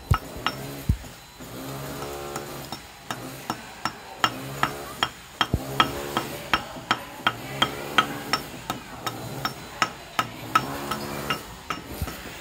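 Hammer striking concrete, chipping at the broken end of a cast concrete ledge: sharp knocks with a short ring, about three a second.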